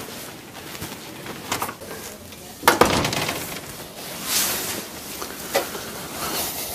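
Scattered knocks and clinks of objects being handled, with a louder clatter about three seconds in.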